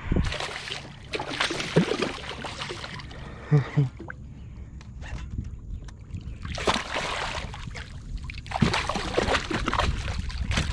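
A hooked redfish splashing and thrashing at the surface beside a kayak as it is reeled in, in three bursts of splashing, with two short knocks about three and a half seconds in.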